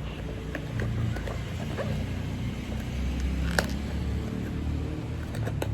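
Handling noise from opening a small cardboard blind box: a few sharp clicks and taps over a steady low rumble.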